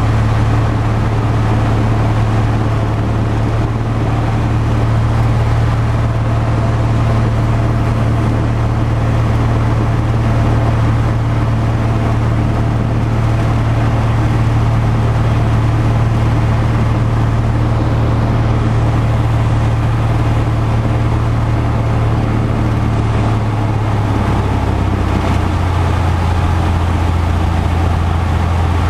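Cessna 170's six-cylinder engine and propeller droning steadily in flight, heard from inside the cabin. About three-quarters of the way through, its note drops to a lower pitch.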